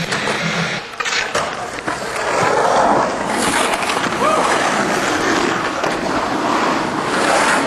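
Skateboard wheels rolling fast across the concrete walls of an empty pool, a loud steady rumble, with a sharp clack about a second in.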